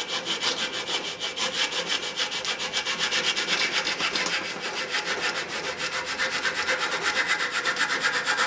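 Restored antique hand saw cutting across a wooden batten in rapid, even back-and-forth strokes, its teeth rasping steadily through the wood.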